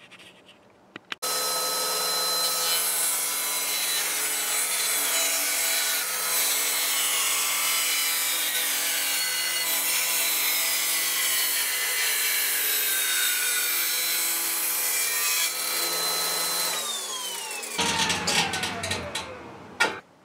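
Table saw started up and run while cutting an old 2x12 board to remove a knot: the motor comes on suddenly about a second in and runs steadily, then is switched off near the end and winds down with its pitch falling, a louder rough noise sounding as it slows.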